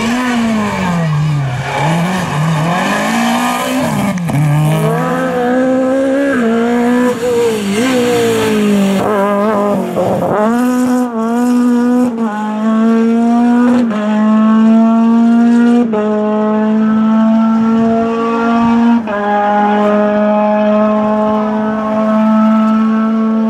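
Rally car engines at full throttle. For the first ten seconds or so the revs rise and fall quickly. After that a long, high engine note holds steady, jumping to a new pitch every few seconds.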